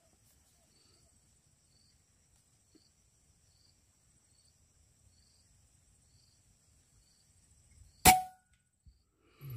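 A single shot from a PCP air rifle about eight seconds in: a sharp crack with a short ringing tail. Before it there is only a faint steady high whine with regular faint chirps, and a low thump follows about a second and a half after the shot.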